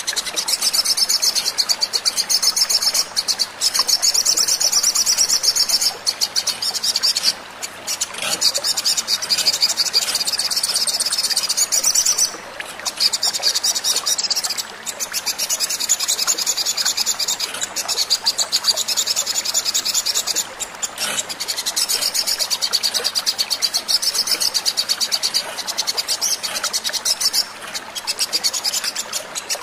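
Olive-backed sunbird (sogon) song recorded for use as a lure: long, fast, high-pitched trills of rapidly repeated notes, broken by short pauses every few seconds.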